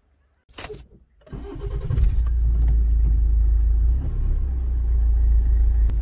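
A brief loud knock about half a second in, then a car engine starting, swelling over about a second and settling into a steady low running, heard from inside the car.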